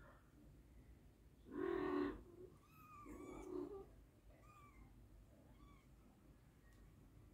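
British Shorthair cats calling: a louder, lower cat call about a second and a half in, then a run of short, high-pitched kitten mews.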